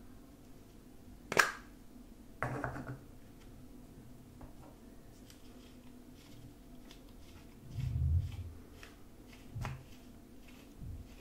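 Plastic deodorant stick handled in the hands: a sharp click about a second in, a short rattle, faint ticks and rubbing of fingers on the plastic, and a dull thud about eight seconds in.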